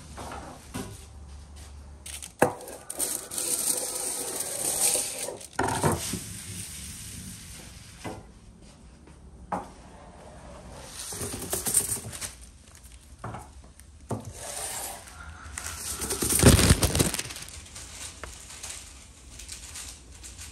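Hand food-preparation noises: scattered knocks and clicks on wood and cookware, between stretches of rubbing and scraping. The loudest burst comes near the end.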